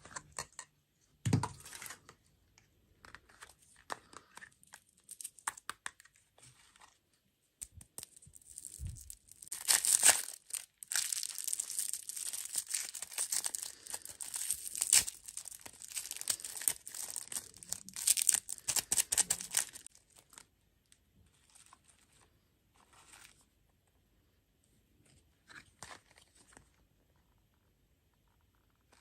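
Plastic food packaging being torn open and crinkled, with a single thump about a second and a half in. The rustles and clicks are scattered at first, then about ten seconds of dense, loud crinkling and tearing in the middle, dying down to a few small rustles.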